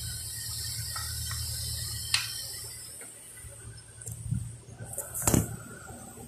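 A steady hiss with a low hum, cut off by a sharp click about two seconds in. A few knocks and clatter follow near the end as the phone is moved and set down on a kitchen counter.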